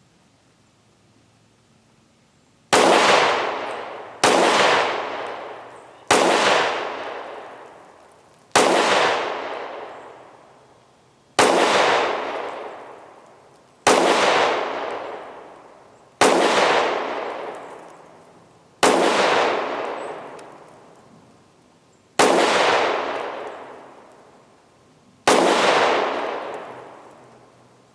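Kel-Tec PR-57 5.7x28mm pistol fired ten times at an unhurried pace, a shot every two to three seconds, with slow double-action trigger pulls. Each sharp shot is followed by a long fading echo.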